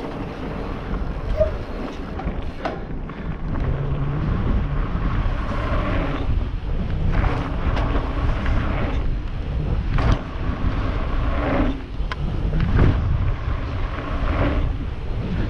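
Wind buffeting the microphone of a helmet camera as a mountain bike runs fast down a dirt and gravel trail, with tyre noise and a few sharp clacks from the bike over bumps.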